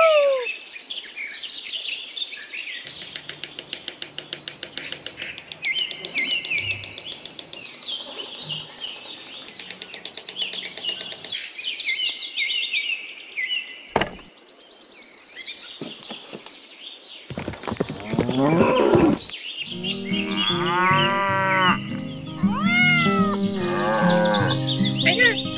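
Added sound effect of cattle mooing, several drawn-out calls in the second half, after a run of short high-pitched squeaks and glides.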